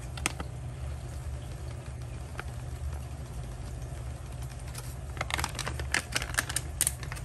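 Light plastic clicks and taps of a plastic leaf-shaped feeding dish and a food packet being handled while powdered food is poured in, with a quick run of clicks near the end as the dish is set back on its suction-cup holder. A steady low hum runs underneath.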